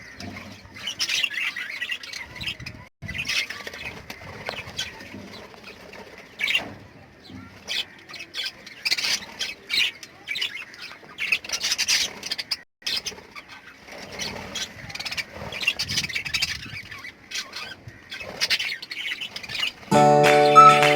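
Lovebirds in a cage chirping and squawking in short, irregular calls while they feed. Music comes in near the end.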